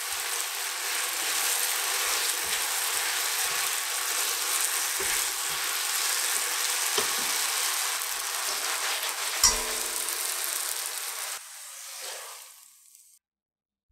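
Glass noodles sizzling hard in a reducing soy and syrup sauce in a nonstick wok over high heat, tossed with tongs that knock against the pan now and then, loudest about two thirds in. The sizzle cuts off suddenly near the end, and a quieter sound follows as the noodles slide out of the wok into a glass bowl.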